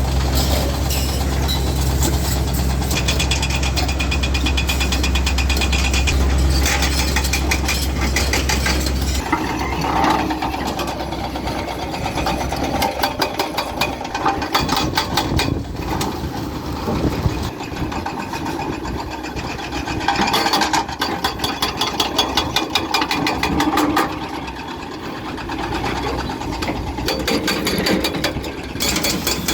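A bulldozer's engine running with a steady low drone, joined by rapid metallic clanking and rattling. About a third of the way in the drone drops and the clanking takes over.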